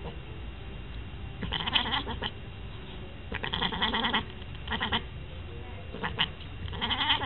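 Siamese-type cat calling in about five short bursts of rapid, pulsed cries, the longest lasting about a second.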